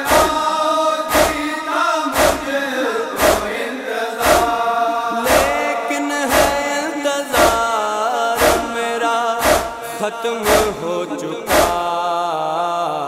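Noha recitation: a male voice chants a mournful Urdu melody over a sharp thump about once a second, the chest-beating (matam) rhythm that keeps time in a noha.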